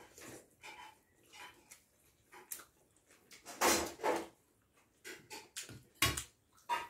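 Close eating sounds of people chewing and smacking their lips over rice and curry, with hands mixing food on the plates. The sounds come in irregular bursts, loudest about halfway through and again near the end.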